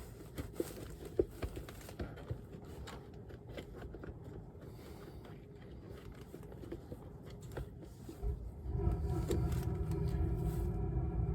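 Faint clicks and small scrapes of hands working at a roof dryer vent cap, then, near the end, a steady humming rumble like a running motor starts and keeps going.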